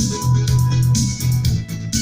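Music with a heavy, pulsing bass line and guitar played back loudly through a MegaPro AV-733 amplifier and Konzert loudspeakers for a sound test.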